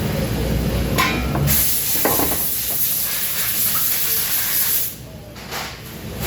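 A loud, steady hiss starts about a second and a half in and cuts off suddenly near five seconds, over a low rumble that is strongest before it.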